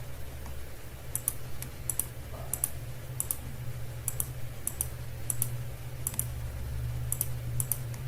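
Clicking at a computer: about ten sharp double clicks, press and release, come at irregular intervals from about a second in. A steady low electrical hum runs underneath.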